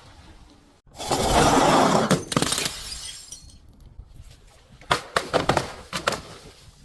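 A glass bottle breaking: a loud shattering crash about a second in, followed by crunching and clinking of glass pieces, then another run of sharp cracks of glass about five seconds in.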